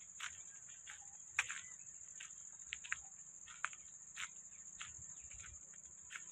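Insects droning steadily at a high pitch, with slow footsteps about every half second beneath them.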